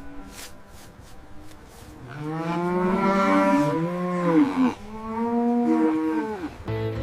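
Cattle mooing: two long calls, the first starting about two seconds in and the second dropping in pitch as it ends.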